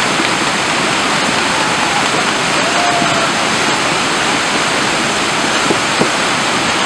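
Whitewater of a river standing wave rushing steadily: an even, loud noise of fast-flowing water churning over the wave.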